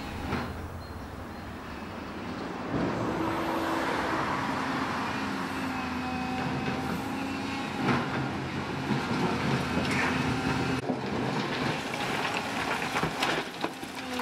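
Diesel engines of tracked hydraulic excavators running steadily, changing pitch a few seconds in. From about halfway on they are joined by irregular knocks and clatter of broken concrete rubble as the bucket digs into and drops debris from a demolished building.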